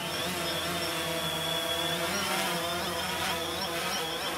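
DJI Phantom 3 quadcopter flying, its four motors and propellers giving a steady buzzing whine made of several pitches that waver slightly as it moves.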